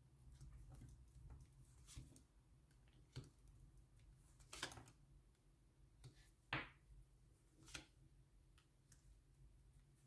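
Near silence with a few faint, short clicks and swishes, about five spread across the stretch: tarot cards being handled and laid on a table.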